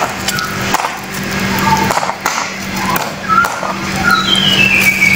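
Chunks of ice clattering and clinking against each other in a plastic bowl as a hand stirs through them.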